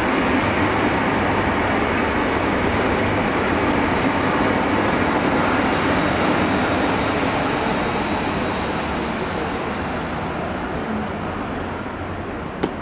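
Great Western Railway Intercity Express Train moving slowly past: a steady rumble of wheels and running gear that eases off over the last few seconds, with faint high chirps now and then and a sharp click near the end.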